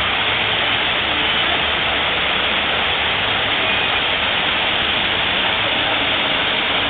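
Waterfall pouring into a pond: a steady rush of falling water.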